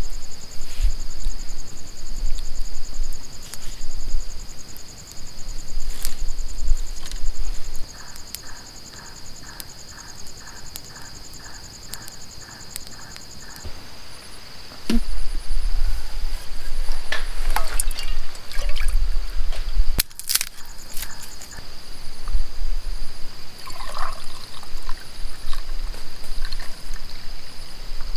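Night insects chirping in a steady high-pitched chorus, with a fainter regular ticking of about two a second in the first half. Near the middle come clinks of camp gear being handled and a short pour of liquid. Low rumbles on the microphone come and go.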